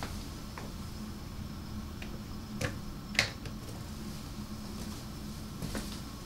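Steady low room-tone hum with a few short light clicks, two of them about two and a half and three seconds in.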